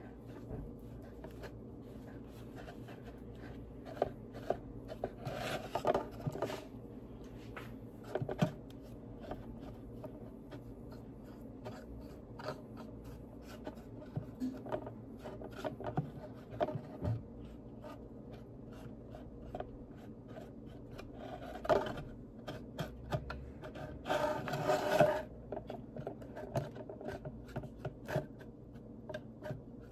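A paintbrush and hands working a cut plastic-bottle planter: scattered light taps, clicks and scrapes of the brush and the plastic strips. Two short scratchy rubbing passes come about five seconds in and again near the end.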